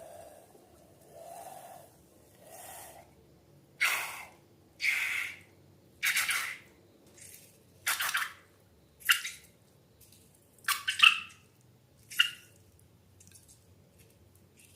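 Wet slime squelching in a string of about ten short, separate squishes, the loudest near the end.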